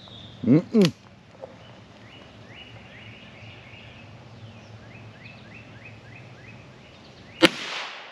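A single .22LR shot from a Ruger Wrangler single-action revolver near the end, a sharp crack with a short ring-out. Before it, a bird sings a series of short repeated notes.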